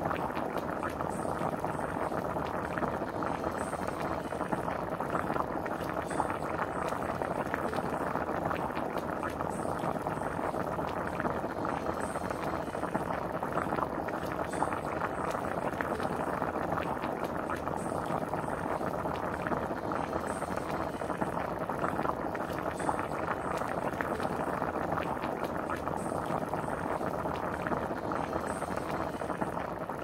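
Chicken vegetable soup at a rolling boil in a pan: steady, dense bubbling with many small pops.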